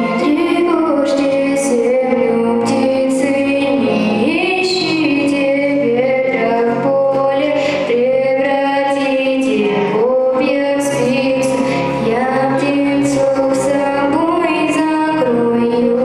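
Solo female vocalist singing a melody into a handheld microphone over instrumental accompaniment, heard through stage amplification.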